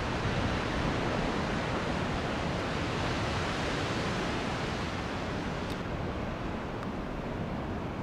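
Big ocean surf breaking, a steady rush of waves and whitewater.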